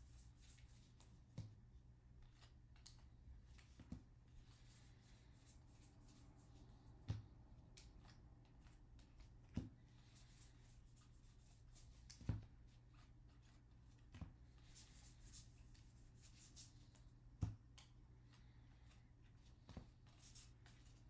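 Baseball cards being flipped through by hand, one at a time: a faint papery sliding of card against card, with a short soft tap every couple of seconds as each card is moved to the back of the stack.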